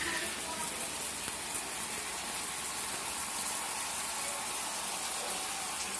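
Water flowing steadily out of an electric water heater's outlet, an even, unbroken gush, run through the switched-off heater to cool it.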